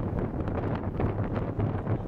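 Wind buffeting the camcorder's microphone: a ragged, rumbling roar with irregular gusty crackles.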